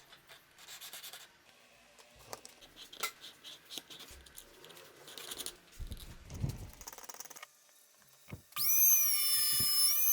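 Wood and tools being handled: rubbing, scraping and light knocks. Near the end a small power tool motor starts with a loud, high-pitched whine.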